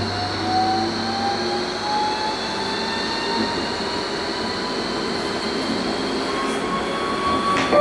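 Interior of a Bombardier Flexity low-floor tram accelerating: the electric traction drive whines in several tones that climb steadily in pitch over running noise from the wheels and track, with a steady high whine above. A sharp click sounds near the end.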